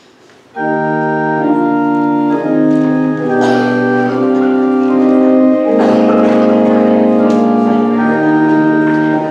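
Church pipe organ starts about half a second in with loud, sustained full chords that change every second or two, the opening of a postlude after the benediction.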